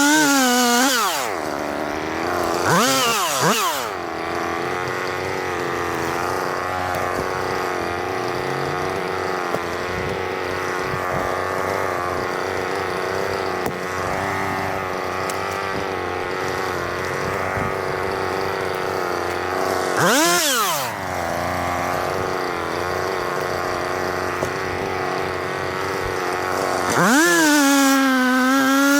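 Two-stroke chainsaw idling, blipped up to high revs and back down three times, then held at high revs near the end.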